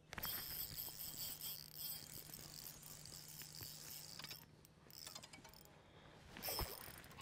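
Fishing reel being cranked to bring in a hooked bass: faint mechanical ticking and whirring of the reel's gears. A low steady hum sits under it for the first few seconds, and there are a few knocks near the end.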